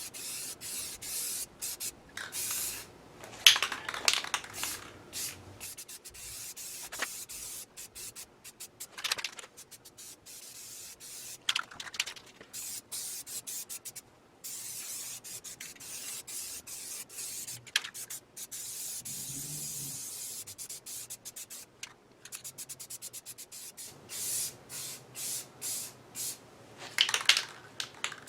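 Paint being sprayed onto the lathe in repeated hissing bursts, the loudest a second or two long, with short breaks between passes.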